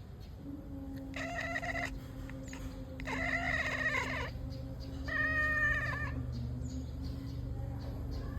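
Domestic cat meowing three times in drawn-out calls about a second long each, over a steady low hum.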